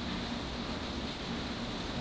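Steady hiss with a faint low hum: background room noise, with no distinct knocks or clicks.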